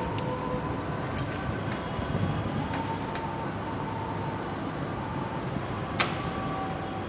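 Steady background noise with faint steady tones, broken by scattered light clicks and one sharper click about six seconds in.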